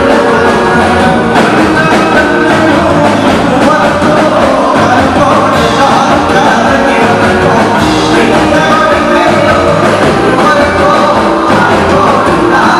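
Live band performing a Malayalam folk song (naadan pattu): singing over instrumental accompaniment with a steady beat.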